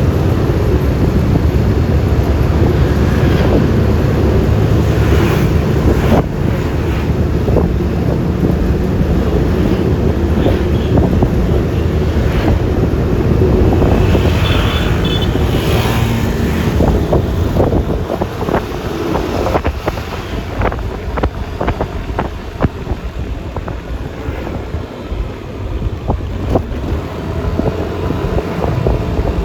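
Wind rushing over the microphone of a moving Yamaha Lexi LX 155 scooter, over its single-cylinder engine and tyre noise. The rush eases somewhat in the second half, with scattered light clicks and knocks.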